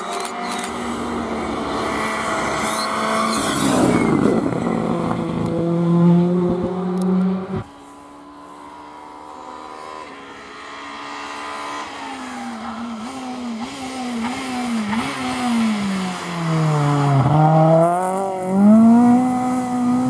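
Two rally car engines at full stage pace, one after the other. First, a Ford Fiesta rally car runs hard at high revs, its pitch sliding down as it comes through, and it cuts off abruptly about a third of the way in. Then a Renault Clio rally car approaches, its engine note dipping and climbing with each lift and gear change, sinking lowest near the end before revving back up.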